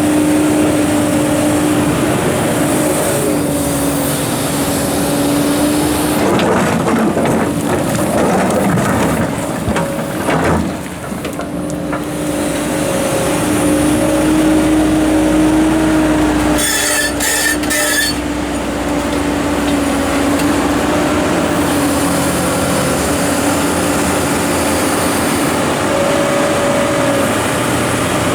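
Komatsu PC290-11 hydraulic excavator working, its diesel engine and hydraulics running with a steady, slightly wavering whine. A quick run of sharp knocks comes about two-thirds of the way through, as rock strikes metal.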